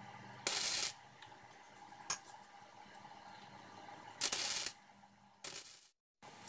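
Stick (arc) welder tack-welding a steel tab onto a steel plate: three short bursts of arc crackle, each about half a second long, the last one quieter, with a single sharp click between the first two.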